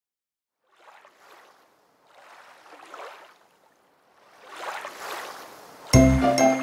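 Three soft, airy rushing swells of noise, like whooshes, each louder than the one before. Near the end the bright children's-song music starts loudly with a heavy bass.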